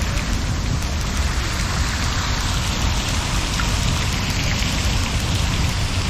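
Water from an ornate bronze fountain's jets splashing steadily into its basin.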